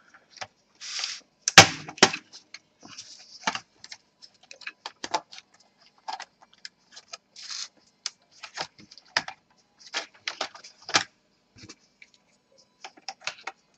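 Plastic snap clips of an Acer Aspire 5742 laptop's top cover clicking and popping as the cover is pried away from the base, with short stretches of plastic scraping and a sharp crack about one and a half seconds in. The cover resists because a screw is still holding it.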